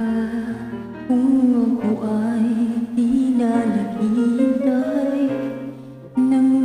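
A woman singing a slow song into a close microphone over a karaoke backing track. Her held notes waver with vibrato, and there is a short break between phrases about a second before the end.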